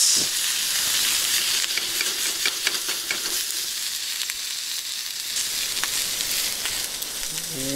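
Carrots, asparagus and green beans sizzling in butter in a skillet over a wood fire, a steady hiss, with a few clicks as chopsticks turn them in the pan.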